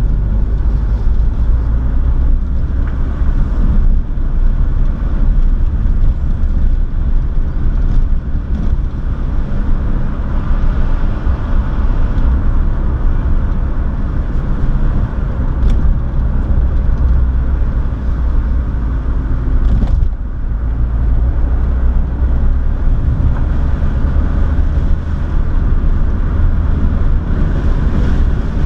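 Car engine and tyre noise heard from inside the cabin while driving: a steady low rumble, with a few faint knocks and a brief dip in level about two-thirds of the way through.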